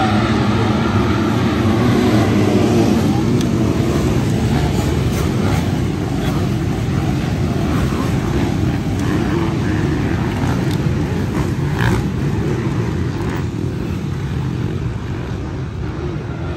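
A pack of 250 cc motocross bikes racing up the track after the start, many engines revving together in one dense, loud noise that eases slightly toward the end.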